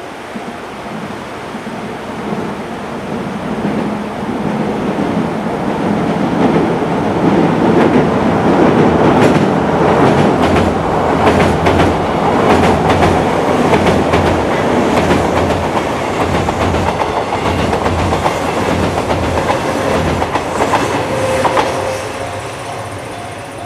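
Kintetsu Minami Osaka Line train passing over a railway bridge: a rumble that builds over several seconds, wheels clacking over the rail joints through the loud middle of the pass, then fading away near the end.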